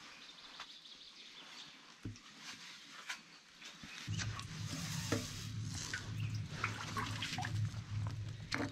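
Magnet on a rope hauled up out of the water in a concrete-lined well: water drips and splashes with scattered knocks. From about four seconds in, a low steady hum joins and becomes the loudest sound.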